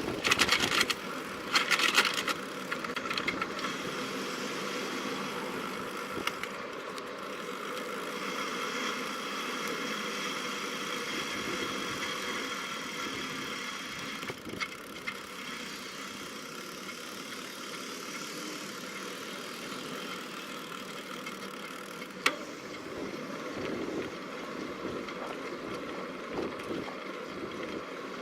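Bicycle ride noise picked up by a bike-mounted camera: a steady rush of tyre and wind noise, with loud rattling jolts in the first couple of seconds and one sharp click about 22 seconds in.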